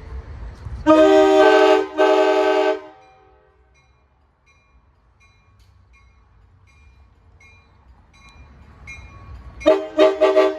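Amtrak Pacific Surfliner cab car's multi-chime air horn sounding two long blasts, then a bell dinging faintly a little under twice a second over a low rumble. Near the end the horn blows a rapid string of short toots.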